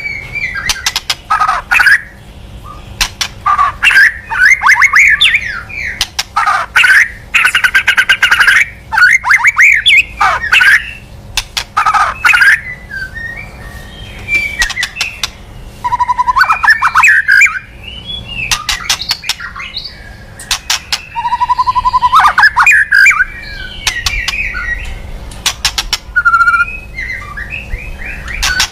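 White-rumped shama (murai batu) singing a lure call. Rapid harsh ticking and rattling notes alternate with fast whistled, warbling phrases, with almost no pause between. This is the kind of call played to draw in or provoke a shama into singing.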